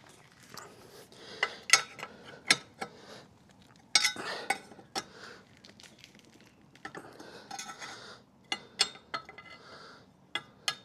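Irregular metallic clicks and clinks as an outboard's propeller nut and tab washer are handled and fitted onto the prop shaft with a wrench.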